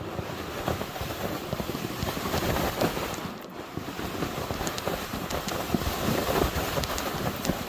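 Wind buffeting the microphone: a steady, rough rush with many small crackles through it.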